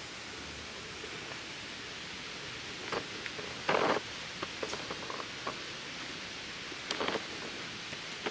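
A few short scuffs, plausibly footsteps on a gravelly dirt track, over a steady even hiss. The loudest scuff comes just before four seconds in, with others around three and seven seconds.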